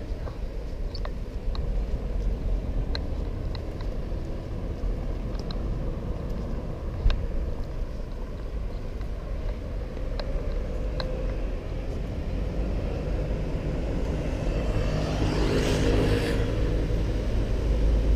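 Steady low city-street rumble with a few scattered small clicks. A motor vehicle passes close between about 14 and 17 seconds in, its engine and tyre noise swelling and then fading.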